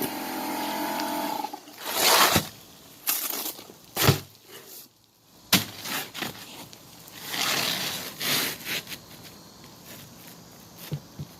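Roofing work handling noise: rustling and scraping with a few sharp knocks. A steady hum stops about a second and a half in.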